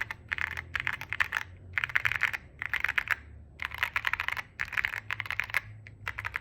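QK65 mechanical keyboard with JKLP Holy Panda Pro tactile switches, a POM plate and CAT-profile keycaps, typed in a run of short, fast bursts with brief pauses between them; a deep, thocky keystroke sound.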